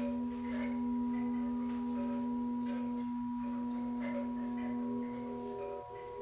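Meditation drone music: a steady low hum held throughout with higher steady overtones, like a singing bowl's ring, and faint soft high notes coming and going over it.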